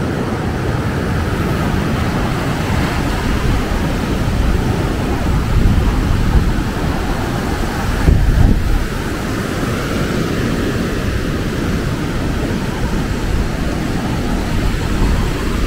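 Rough surf breaking on a sandy beach, a steady rush of waves mixed with wind rumbling on the microphone, swelling louder about eight seconds in.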